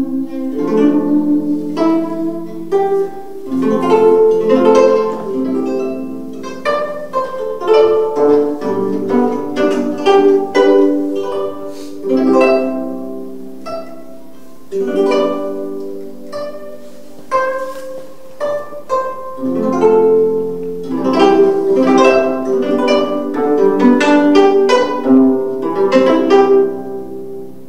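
Solo gayageum, the Korean plucked zither, played with the fingers: a continuous flow of plucked notes that ring and fade, with melodic runs and a few pauses where the notes die away.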